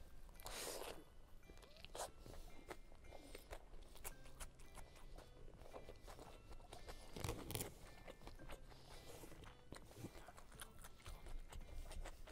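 Faint close mouth sounds of a person biting into and chewing a meat-filled flatbread roll, with small wet clicks and soft crunches scattered through.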